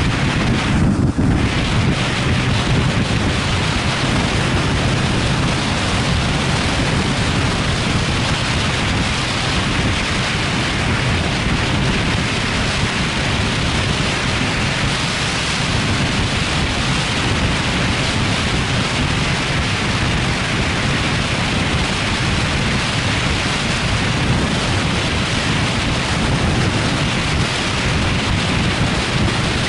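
Wind rushing over an action camera's microphone at motorway speed, a steady loud roar with a low rumble underneath.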